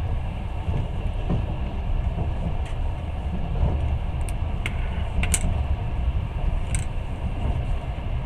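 Long-distance passenger train running along the line: a steady low rumble of the moving carriage, with a few sharp clicks in the middle.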